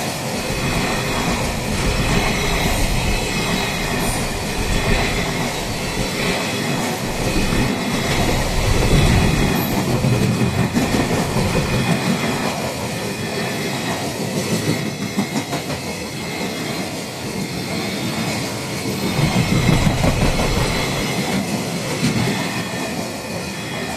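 Freight train rolling past at close range: the wagons' wheels clatter over the rail joints, with some wheel squeal. It swells twice, then fades as the end of the train passes.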